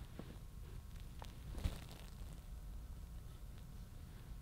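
Quiet kitchen room tone with a steady low hum, and a couple of soft taps and light handling noises about a second and a half in as shredded chicken is forked from a bowl onto a tortilla.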